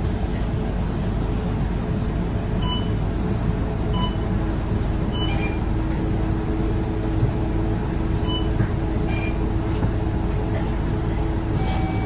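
Cabin sound of a Scania K230UB city bus on the move: the steady drone of its five-cylinder diesel engine with tyre and road noise on a wet road. A few short, faint high beeps sound over it.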